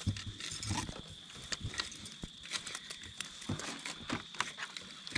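A fork cutting into a campfire-baked potato, with scattered light clicks and scrapes of metal on a stoneware plate. A steady high insect drone continues behind it.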